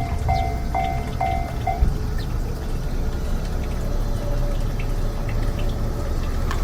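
Railroad crossing's electronic warning bell ringing about twice a second, then stopping about two seconds in. A steady low rumble runs underneath.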